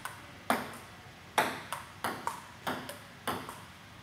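Table tennis rally: the ball clicks sharply off the paddles and the table, about nine hits at an uneven, quick rhythm.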